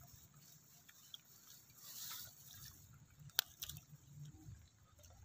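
Faint squelching and dripping of a hand working in shallow muddy water among wet grass, with one sharp click about three and a half seconds in.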